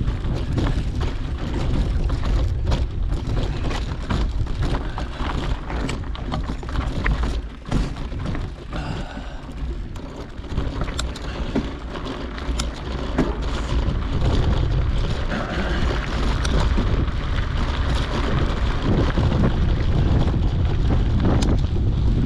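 Wind buffeting a GoPro's microphone in a heavy low rumble while a mountain bike rolls over a rough dirt trail, with frequent clicks and rattles from the bike and tyres. The rumble eases about eight seconds in and builds again after about fourteen seconds.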